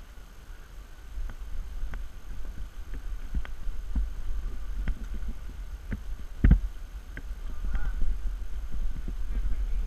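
Scattered clicks and knocks from climbing gear and belay rope being handled, the loudest about six and a half seconds in, over a steady low rumble on the camera's microphone.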